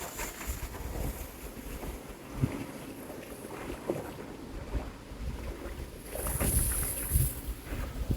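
Wind buffeting the microphone over water sounds while a small Sunfish sailboat is pushed into the lake, with a few knocks from the hull and a brief hissing rush about six seconds in.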